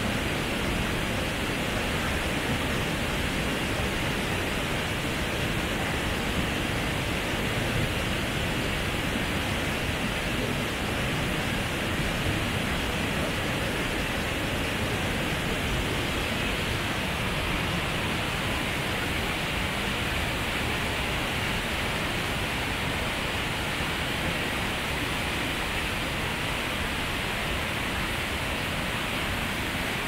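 Steady rushing of water from a tall mountain waterfall, an even, unbroken noise with no let-up.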